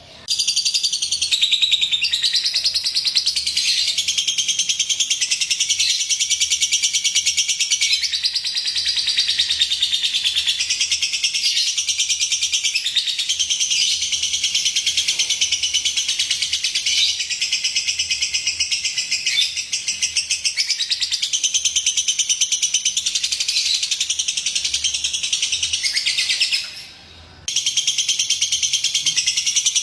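Lovebird chattering in a long, unbroken run of rapid high chirps, played as a lure call to set other lovebirds singing. It breaks off for about a second near the end, then starts again.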